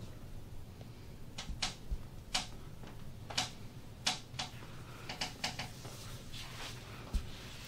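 Hands working over skin and clothing in a back massage: a string of short brushing swishes at uneven spacing, with a couple of soft thumps.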